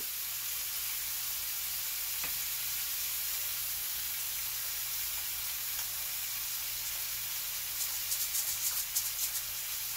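Swordfish steaks sizzling steadily on a countertop electric grill. Near the end comes a quick run of sharp clicks as a pepper mill grinds black pepper over them.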